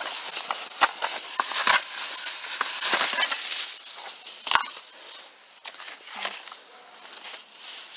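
Grocery bags rustling and crinkling while items are handled and unpacked, with a few sharp knocks as things are set down. The rustling is loudest in the first half and quieter after.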